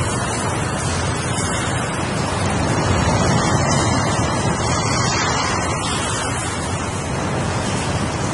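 Ocean surf: a continuous rushing wash of waves that swells slightly about halfway through.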